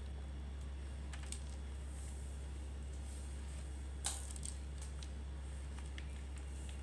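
Faint taps and clicks from piping choux paste onto a paper-lined baking tray, with one sharper click about four seconds in, over a steady low hum.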